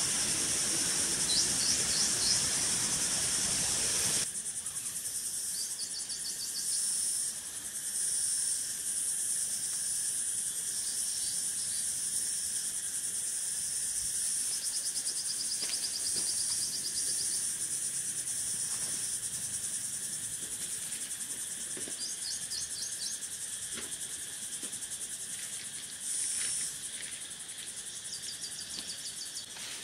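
Insects droning steadily at a high pitch, with short runs of rapid chirps every few seconds. A rushing noise sounds under them for the first four seconds and stops abruptly.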